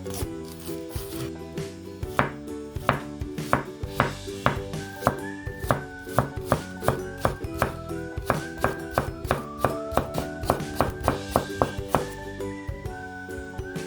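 Kitchen knife chopping food on a cutting board in a steady run of sharp chops, about two to three a second, over background music.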